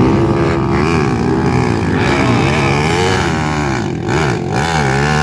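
250cc four-stroke motocross bike engines revving up and down over and over as the riders try to power their bikes out of deep mud.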